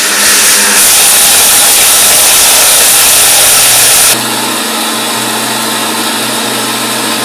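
Hamilton Beach Professional mixer grinder motor running at high speed, grinding dried turmeric pieces to powder in the jar: a loud, dense whir. About four seconds in it steps down to a quieter, steadier run.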